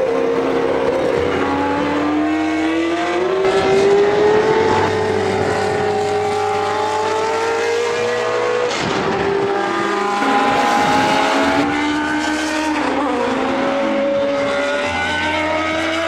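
1981 Ensign N180B Formula 1 car's Cosworth DFV V8 at racing speed, its loud, high engine note rising in pitch as it accelerates, then dropping and climbing again through several gear changes.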